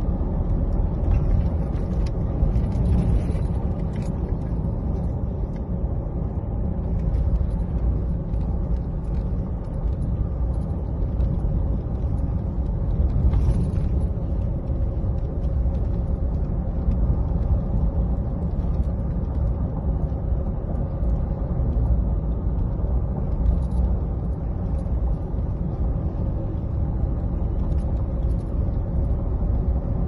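Steady engine and road rumble of a moving vehicle, heard from on board, with a faint steady hum above it.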